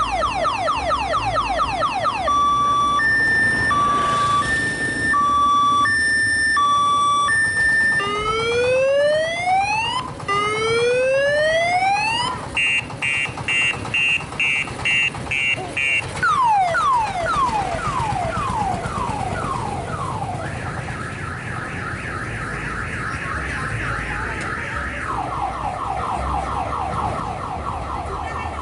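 Odong-odong tour train's loud electronic multi-tone horn cycling through its siren patterns: rapid falling chirps, an alternating two-tone beep, rising whoops, fast pulsing, slower falling sweeps and a fast warble, each lasting a few seconds.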